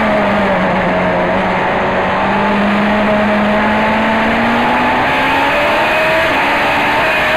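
Race car engine heard onboard, running hard. Its note dips just at the start, then climbs slowly for about five seconds and holds steady near the end.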